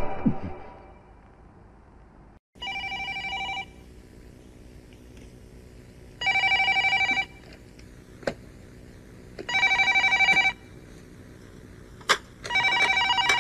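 Landline telephone ringing: four rings about three seconds apart, each lasting about a second, the first quieter than the rest. There are a couple of sharp clicks between the later rings.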